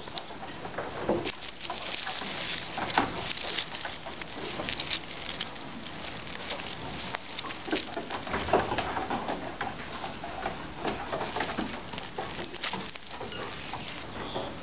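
Close irregular rustling and crackling of a hand digging into a vermicompost bed, moving crumbly moist compost and dry straw, with many small clicks.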